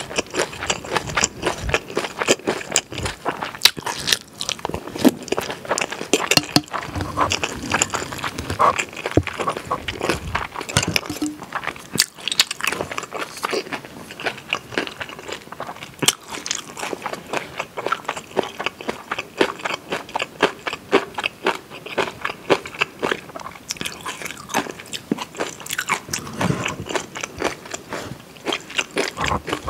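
Close-miked eating of stir-fried pork and kimchi: a continuous run of crunching bites and wet chewing, many clicks a second.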